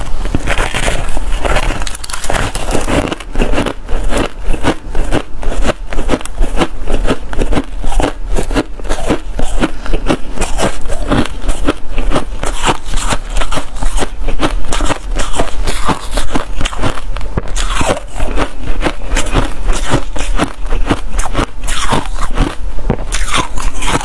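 A chunk of freezer frost bitten and chewed right at a clip-on microphone: a steady run of loud, crisp crunches, several a second.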